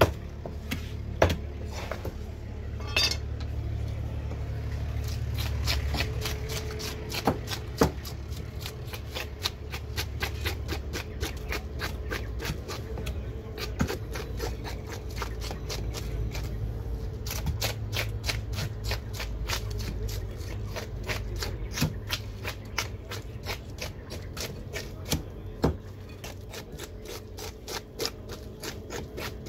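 Blade scraping the scales off a whole fish on a wooden chopping block, in quick, regular strokes about two or three a second, each a short sharp scratch, over a low rumble.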